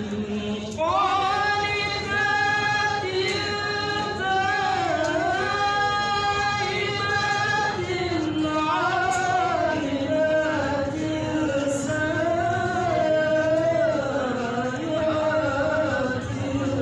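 A man reciting the Qur'an in melodic tilawah style into a microphone, holding long ornamented notes that waver and slide in pitch. There is a short breath pause about a second in, and the voice moves to a lower register in the second half.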